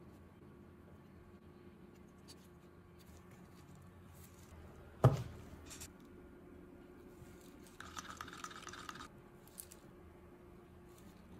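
Wooden stir stick scraping round a plastic cup of clear epoxy resin for about a second, with a few light ticks after. A single sharp knock comes before it, about five seconds in.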